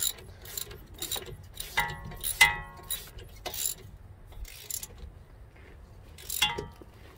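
Socket ratchet clicking in short strokes with metal-on-metal clinks as the strut-to-steering-knuckle bolts are tightened snug. A couple of the clinks ring briefly, and the strokes pause for about a second and a half before one last one near the end.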